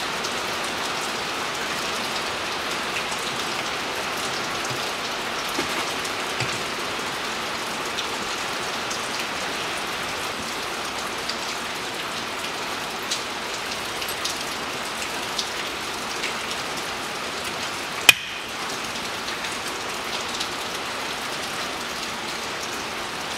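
Steady hiss throughout, with faint scattered ticks and one sharp click about eighteen seconds in.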